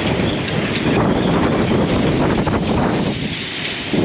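Strong gusty wind buffeting the microphone: a loud, steady rushing that eases slightly about three seconds in.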